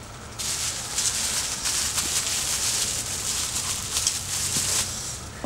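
Plastic bubble wrap crinkling and rustling as it is pulled off by hand, starting about half a second in and stopping shortly before the end.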